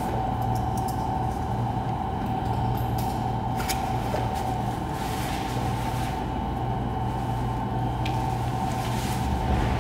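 Steady ambient drone: a constant low hum with a held high tone over it, and a few brief clicks. A deeper rumble comes in near the end.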